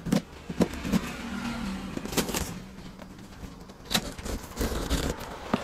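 Packaging being ripped off the top of a cardboard box: a rasping tearing noise broken by several sharp snaps.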